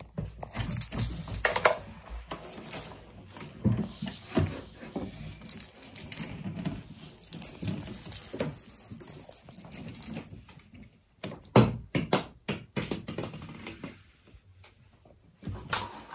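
A plastic lattice rattle ball with a bell inside jingles and rattles as kittens bat it about, with clicks and knocks of toys and paws on a wooden parquet floor. The loudest sharp knocks come together about three-quarters of the way through.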